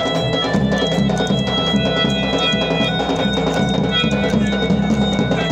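Rajasthani folk music for a Kalbeliya dance: a harmonium holding a melody over a steady drum beat, amplified through loudspeakers.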